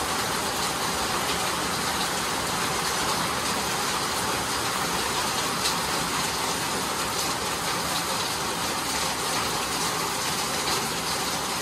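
Steady rain falling: an even, unbroken hiss that does not change.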